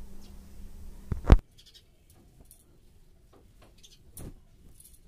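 Cotton kantha quilts rustling as they are handled and shaken out, with one loud thump a little over a second in. Faint rustling and a softer thump follow, with a few brief faint high chirps.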